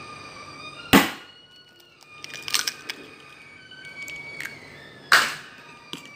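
An egg cracked on the rim of a metal bowl and dropped onto mashed banana: two sharp knocks, about a second in and near the end, with a few lighter clicks between.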